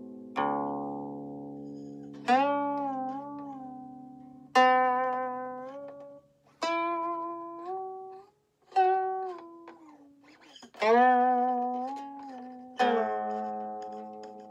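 Guqin played solo: seven notes plucked about two seconds apart, each left to ring while the left hand slides along the string, so the pitch glides up or down and wavers as it fades.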